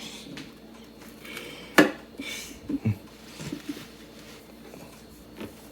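Dishes clattering: one sharp clack of a plate or utensil about two seconds in, followed by a couple of softer knocks.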